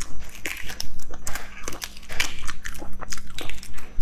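Cracked shell being picked and peeled off a cooked egg by fingers close to the microphone: a quick, irregular run of crackling clicks and crinkles.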